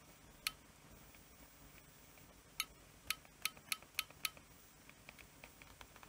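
Sharp clicks from a Sony RMT2100 Betamax remote control as it is worked by hand: one click about half a second in, then six in quick succession near the middle.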